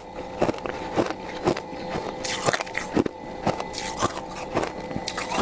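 Thick freezer frost being scraped and crunched, in sharp strokes about twice a second with a few longer grating scrapes between them.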